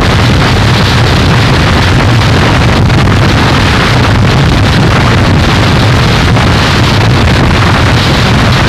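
Harsh noise music: a loud, unchanging wall of dense distorted noise with a heavy low rumble underneath.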